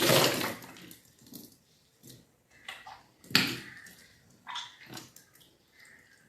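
A person retching and gushing up swallowed water in the yogic cleanse kunjal kriya, vomiting deliberately brought on with two fingers. The loudest gush comes right at the start and another about three seconds in, with smaller retches and splashes between.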